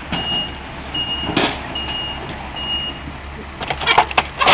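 Komatsu excavator's reversing alarm beeping evenly, about once every 0.8 s, over its steadily running diesel engine; the beeping stops about three seconds in. A quick cluster of metallic clanks and knocks follows near the end.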